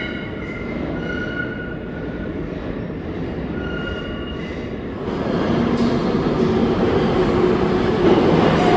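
New York City subway train running through a station, its wheels squealing with thin high tones, then growing louder about five seconds in.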